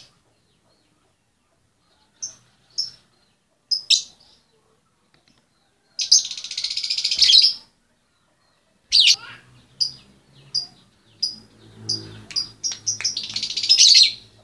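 A female lovebird's shrill calls, calling for the male. First come single sharp chirps a second or so apart. About six seconds in there is a rapid chattering burst of a second and a half, then more chirps and another long chattering burst near the end.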